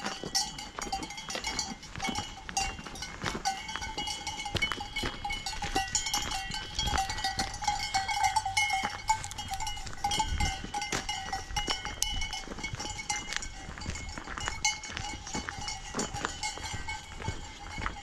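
Cowbells on grazing cattle clanking and ringing without pause, several bells sounding at different pitches.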